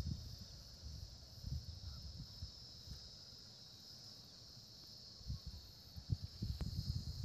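Steady high-pitched chorus of insects such as crickets, with irregular low rumbling underneath and a single sharp click about six and a half seconds in.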